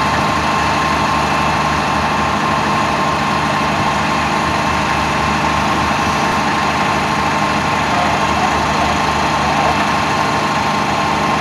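Diesel engines of parked fire trucks running steadily at idle, an even drone that does not change in pitch or loudness.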